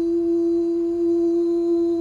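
A man's voice humming one long, steady note.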